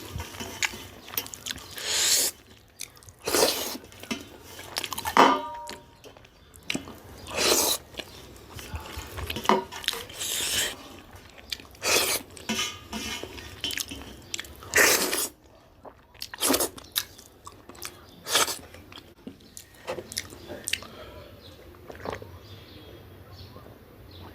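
A person eating up close: irregular chewing and mouth smacking over a meal of rooster curry and kodo millet dhido, with occasional clinks of dishes and cutlery.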